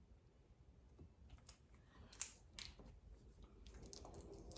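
Faint scattered clicks and small crinkles from vinyl wrap film being worked and cut with a hobby blade, the sharpest click a little past two seconds in.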